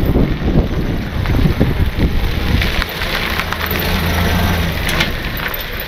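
1928 Ford Model A pickup's four-cylinder engine running as the truck drives past, a steady low drone with some uneven low thumps in the first couple of seconds.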